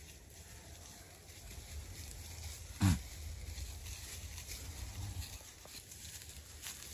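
Goats moving and browsing through undergrowth and dry leaf litter, with light rustling. One short, low bleat falls in pitch about three seconds in.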